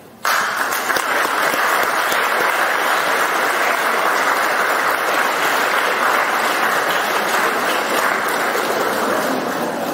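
Audience applauding, breaking out suddenly just after the start and tailing off slightly near the end.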